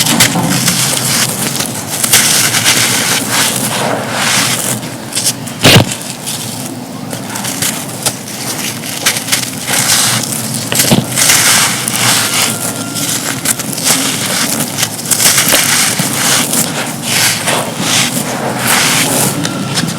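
Dry, dusty, gritty cups being crumbled and crushed in both hands, a dense irregular run of crunches and crackles with one sharp crack about six seconds in.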